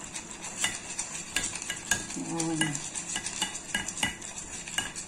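Wire whisk beating a thick flour-and-cornstarch batter in a glass bowl: the wires clink against the glass in quick, fairly regular clicks, about three a second, as the lumps are whisked out to make it smooth.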